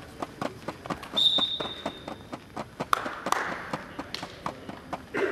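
Wrestlers' shoes tapping and scuffing on the wrestling mat in quick, irregular steps, with a short high whistle-like tone about a second in.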